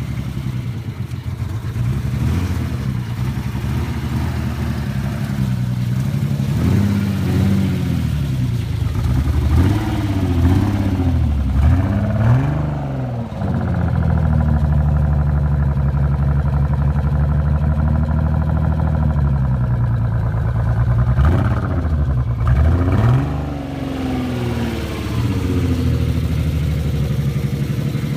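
Nissan 300ZX V6 engine idling and being revved in a series of quick blips, held at raised revs for several seconds, then blipped again before settling back to idle. The engine has a misfire of unknown cause.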